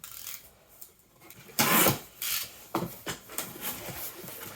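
Cardboard jigsaw puzzle boxes being handled, rubbing and scraping against each other. A loud scuffing swish comes about a second and a half in, then shorter rubbing noises.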